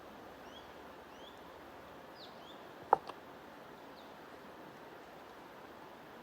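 Small birds giving short, scattered chirps over a steady hiss of white noise or flowing water. A single sharp click about three seconds in, with a fainter one right after, is the loudest sound.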